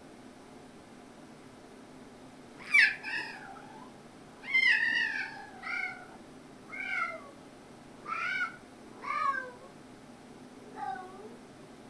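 Domestic cat meowing about seven times, each call falling in pitch; the first, about three seconds in, is the loudest, and the second is the longest.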